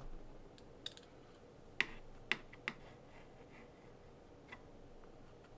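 Light, scattered clicks of small hard parts being handled: RC car screws and metal or carbon-fibre pieces picked up and set down on a cutting mat. About five or six separate clicks at irregular intervals, the loudest near the middle.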